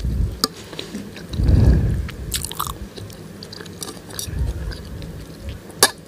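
Close-miked chewing of soupy instant noodles, with wet mouth sounds swelling about a second and a half in and again near four and a half seconds. A few light clicks are scattered through, with a sharp one near the end.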